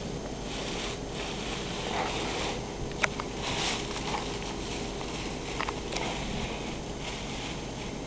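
Scraping and rustling of a cat moving about in a plastic litter box, with a few sharp clicks, loudest about three seconds in, over a steady background hum.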